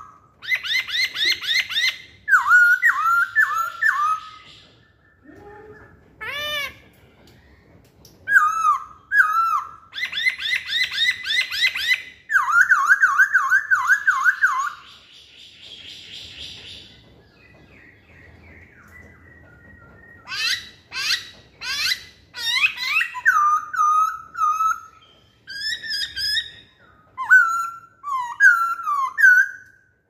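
Black-throated laughingthrush (poksay Hongkong) singing: loud, varied phrases of whistled notes that drop in pitch, quick rattling runs of notes and a rising sweep. There is a quieter lull a little past the middle before the song picks up again.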